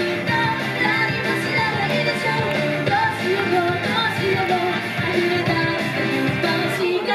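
Female vocalists singing a pop song into microphones over instrumental accompaniment, live.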